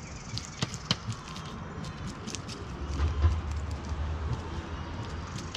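Knife scraping and clicking on a tilapia against a plastic folding table as the fish is cleaned: a run of short, sharp clicks, with a low rumble from about three to four and a half seconds in.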